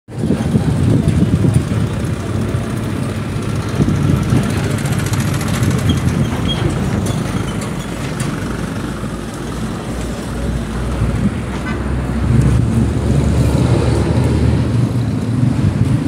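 Road traffic: vehicle engines running by as a steady low rumble, with a deeper engine drone building from about ten seconds in.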